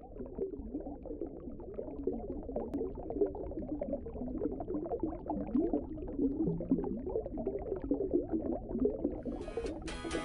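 Underwater bubbling and gurgling sound effect, a dense steady bubbling that slowly grows louder. Strummed guitar music comes in just before the end.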